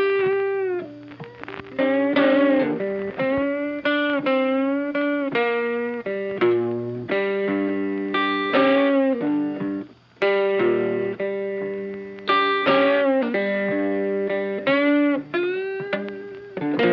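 Background instrumental music led by a guitar, playing a melody of bending notes over sustained chords.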